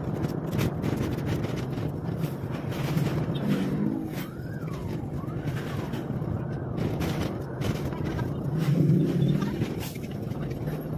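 A car's engine and road noise heard from inside the cabin while driving, with the engine hum swelling near the end and frequent small bumps or knocks. A faint wavering tone rises and falls a few times around the middle.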